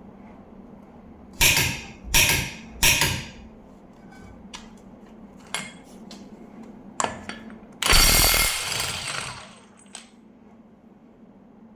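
Kobalt 24V brushless impact wrench hammering in three short trigger bursts, then a longer burst of about a second and a half a few seconds later, with a few metallic clicks between them.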